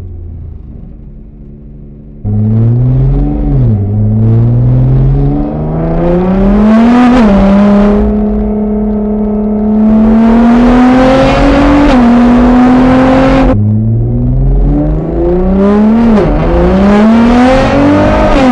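Nissan GT-R R35's twin-turbo 3.8-litre V6, tuned to about 600 hp, through a titanium exhaust, accelerating hard. After a quieter first two seconds it jumps to full throttle, and the engine pitch climbs and drops back at each upshift through several pulls.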